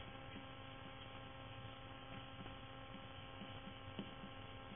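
Low, steady electrical mains hum with a stack of evenly spaced tones, with a few faint ticks and a soft click about four seconds in.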